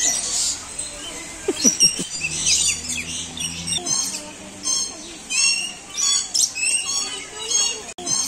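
Captive birds in a zoo aviary chirping, a busy mix of short high calls. In the second half one call, short and dropping in pitch, repeats about twice a second.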